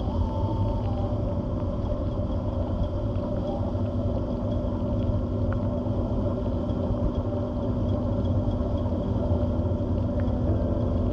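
Electric thrusters of a small ROV running underwater: a steady low rumble with a faint, steady whine over it.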